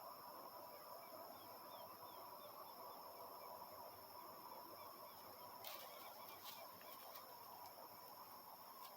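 Faint evening countryside ambience: a steady high-pitched drone of insects, with a short run of faint bird chirps early on and a few soft clicks near the middle.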